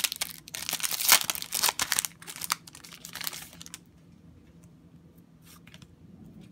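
Foil wrapper of a Yu-Gi-Oh! booster pack being torn open and crinkled by hand, a dense crackle for the first three to four seconds. After that, only faint rustles of the cards being handled.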